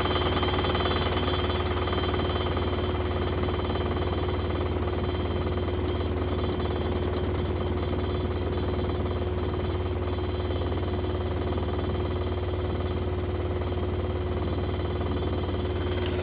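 An engine running steadily at constant speed, a fast even chatter over a low hum.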